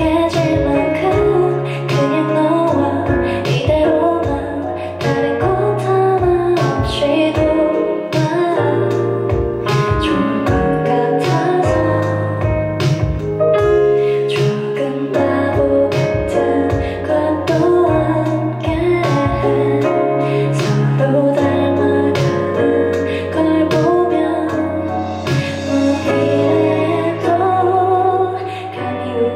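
A woman singing a song into a handheld microphone over instrumental accompaniment, with held bass notes and a steady beat.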